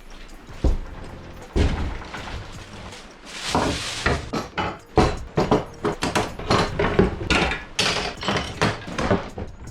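Irregular series of sharp knocks and clunks of hard objects, tools and wood being handled in a workshop, with a brief hiss about three and a half seconds in.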